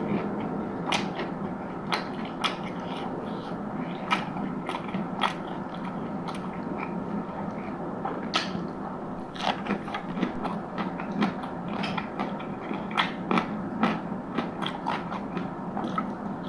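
Close-miked eating: crisp crunching bites and chewing, sharp crunches at irregular intervals every second or so, over a steady background hum.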